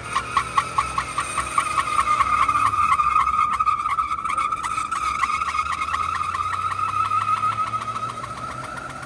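Ford F-150's front tires spinning on a steel sheet in a burnout: a steady high tire squeal that pulses several times a second, over the engine's low drone. It eases off near the end.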